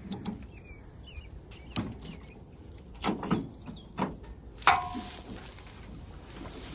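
A series of knocks and thuds, about six in all. The loudest, nearly five seconds in, gives a brief metallic ring. Faint bird chirps sound in the first second.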